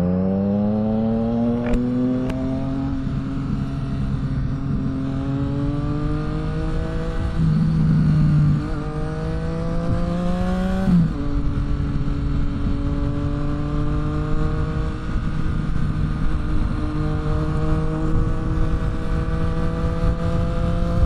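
Sport naked motorcycle engine accelerating hard through the gears: the pitch climbs, drops sharply at upshifts about a third and about half of the way through, then holds and slowly rises under steady throttle. Heard from the rider's position with wind rush.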